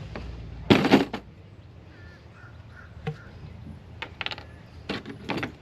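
Crow cawing three times, short harsh calls spread across the few seconds, with a faint click between them.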